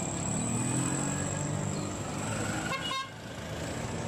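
Street traffic in a narrow lane: small vehicle engines running, such as auto-rickshaws and a motorcycle, with a brief horn toot a little under three seconds in.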